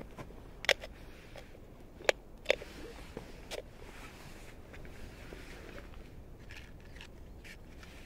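Parts of a Trangia camping stove set being handled: a few sharp clinks and knocks of aluminium cookware, the loudest about two seconds in, with fainter ones near the end.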